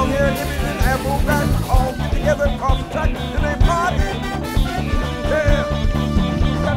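A live band playing, with a drum kit keeping a steady beat and electric guitar, and a melody line that bends up and down in pitch over it.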